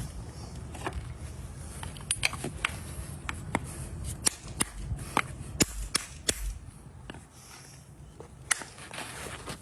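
Farrier's hammer tapping in horseshoe nails: a run of sharp, irregular strikes about two a second, thinning out after about six seconds.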